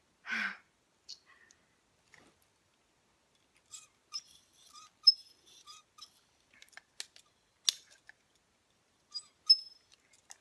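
Curling iron being handled while curling a section of hair: scattered sharp clicks and small metallic clinks, a few of them with a brief ringing ping, after a short breath near the start.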